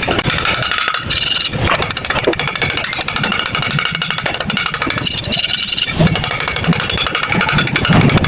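Electric arc welding on thin pipe: a steady, dense crackle from the arc.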